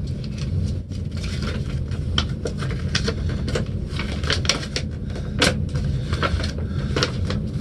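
Paper and sticker sheets being handled and shuffled: a string of crinkles, rustles and small clicks, over a steady low hum.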